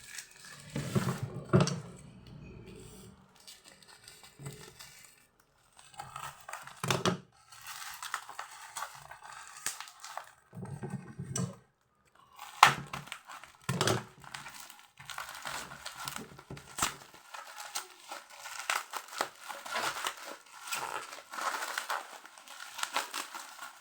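Toy packaging being torn and worked open by hand: irregular crinkling and tearing with occasional sharper snaps, broken by two short pauses.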